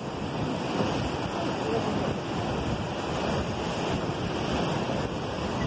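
Steady rushing noise of wind buffeting the microphone, blended with sea surf.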